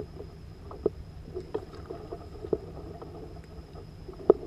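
Steady low wind and water noise around a plastic fishing kayak, broken by about four sharp knocks spread through, as a grouper is played on rod and reel.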